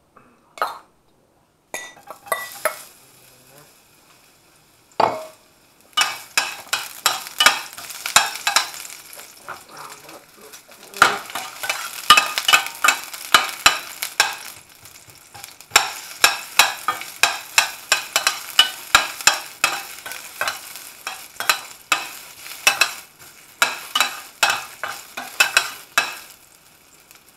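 Food sizzling in hot olive oil in a stainless steel frying pan, stirred with a utensil that knocks and scrapes against the pan in quick, repeated strokes. The stirring starts sparsely and becomes steady after a few seconds.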